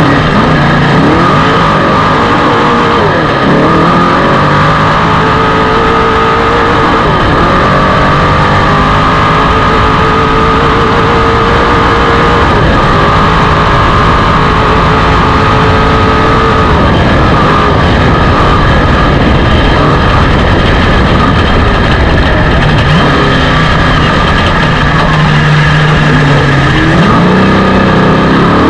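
Off-road race car's engine running hard, its pitch climbing and then dropping several times as it revs through the gears.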